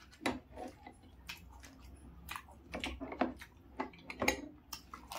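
Crisp, hollow fried puri shells cracking as they are broken open by hand and chewed: a string of sharp, irregular clicks and crackles.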